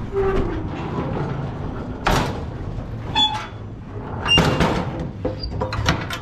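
Steel livestock trailer's gate and latch bars clanking and rattling as the gate is shut and bolted, with several sharp metal bangs, one of them ringing briefly.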